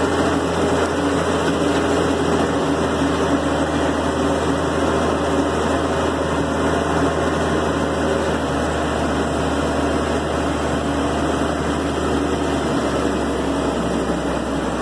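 Tractor diesel engine running steadily, heard from inside the cab while driving. Its low note drops a little near the end.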